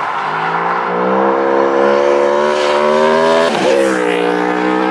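Aprilia Tuono V4 1100 Factory's V4 engine through an Akrapovic slip-on exhaust, accelerating hard with its pitch rising steadily. The pitch breaks briefly for an upshift about three and a half seconds in, then it pulls up again.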